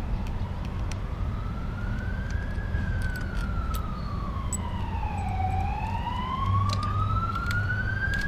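An emergency-vehicle siren wailing, its pitch rising, falling and rising again slowly over the whole span, over a steady low rumble. A few light clicks of small metal parts being handled sound over it.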